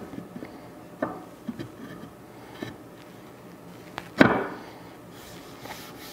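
Wooden pieces knocking on a wooden workbench as a flat panel is handled and pressed into a shallow wooden box: several light taps and clunks, with one sharper, louder knock about four seconds in.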